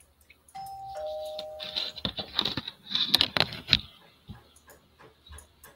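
A two-note ding-dong chime: a higher tone sounds about half a second in, a lower tone follows, and both stop near two seconds. A quick run of clicks and rustling follows for about two seconds.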